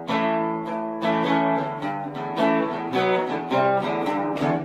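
Acoustic guitar music: plucked notes and strummed chords.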